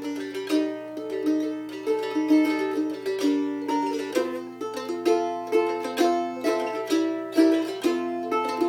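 Voight handmade mandolin being played: a melody of picked notes, with a sharp pick attack on each note and the strings ringing on between strokes, at a steady rhythm of about two to three strokes a second.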